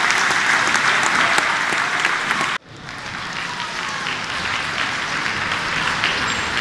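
Audience applauding: dense, steady clapping from a large crowd. It breaks off abruptly about two and a half seconds in, then resumes a little quieter as applause and crowd noise.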